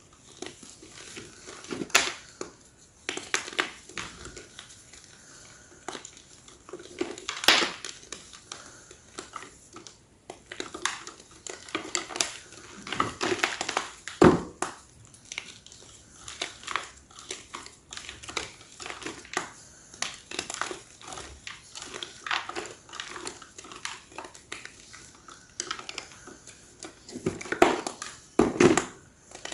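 Large slabs of gym chalk being crushed: a dense, irregular run of crisp crunches and crumbles, with a few louder cracks about a quarter of the way in, halfway through and near the end.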